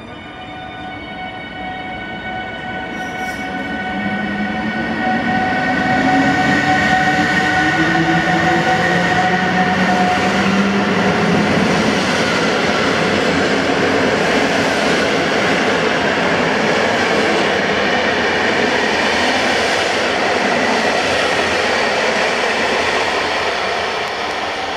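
PKP Intercity EU160 electric locomotive passing at the head of a passenger train, its electric whine rising in pitch as it comes in, followed by the steady loud rumble and rattle of the coaches' wheels rolling by.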